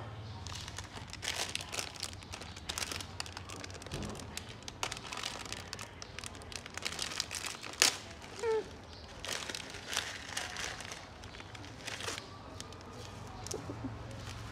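Plastic instant-noodle packet crinkling and rustling in the hands as it is torn open and the foil seasoning sachets pulled out, in irregular spells of crackling with a sharp click about halfway through.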